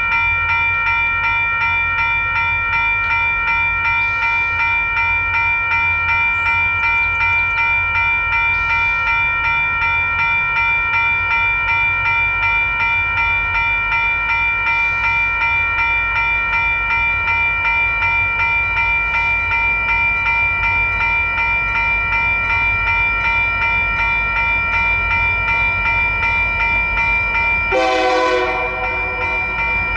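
WCH electronic crossing bells ringing steadily and rapidly over the low rumble of a passing train. A short burst of shifting tones cuts in near the end.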